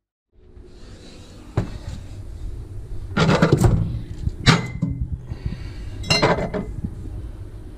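Glass beer bottles clinking and knocking together as they are handled on a refrigerator shelf: a click early on, a clatter a little after three seconds, then two sharp clinks, each with a brief glassy ring.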